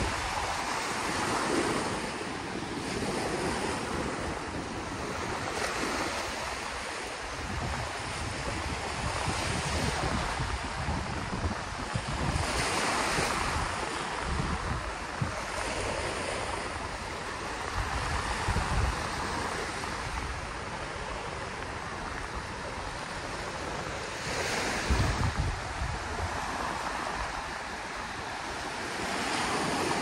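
Sea waves breaking and washing on the shore, swelling and ebbing every few seconds, with wind gusting against the microphone now and then.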